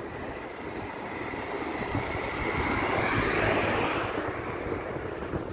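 A vehicle passing, its sound swelling to its loudest about three and a half seconds in and then fading away.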